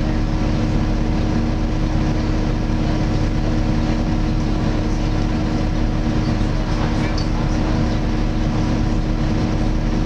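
Interior of a Volvo B7TL double-decker bus under way, heard from the upper deck: the loud 'hoover' of its engine cooling fan, a steady drone over the six-cylinder diesel and road noise.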